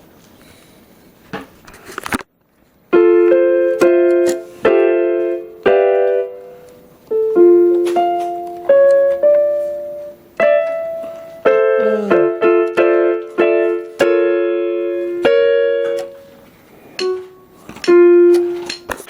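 Casio LK-280 electronic keyboard sounding a piano tone: after a couple of clicks, notes and chords are struck from about three seconds in, each fading away, at roughly one every second.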